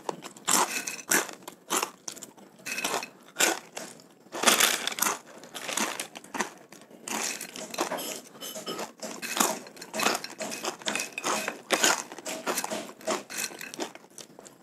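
Close-up crunching and chewing of crispy fried macaroni snack (BonCabe Makaroni Krispi), a run of irregular brittle crunches as mouthfuls are bitten and chewed.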